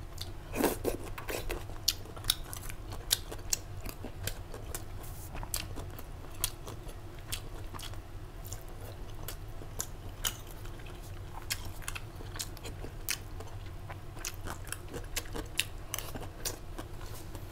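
A person chewing and biting food, with frequent irregular crunches and mouth clicks.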